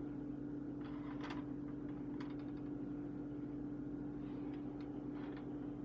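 A few faint scrapes and clicks as a sandwich is slid around a buttered frying pan on a stovetop, over a steady low hum.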